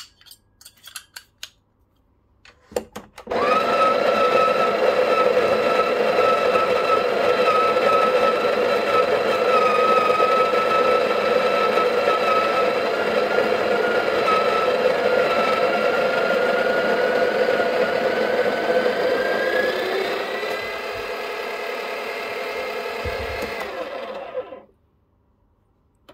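Breville Barista Pro's built-in conical burr grinder grinding an espresso dose into the portafilter: a loud, steady motor whine for about 21 seconds. For the last few seconds it rises in pitch and gets a little quieter as the burrs run empty, then it stops. It is preceded by a few clicks as the portafilter is seated in the grinder cradle.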